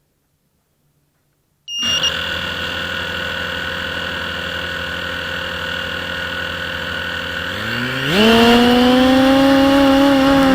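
Near silence, then the brushless motors of a 250-size FPV racing quadcopter start up abruptly about two seconds in and spin with a steady whine. About eight seconds in they are throttled up, louder, with a rising, wavering pitch as the quad lifts off.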